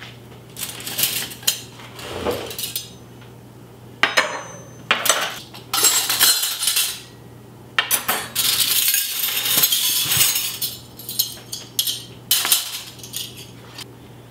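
Metal flatware (forks, spoons and knives) clinking and clattering as a jumbled pile is picked through and sorted by hand, in bursts with short pauses between them.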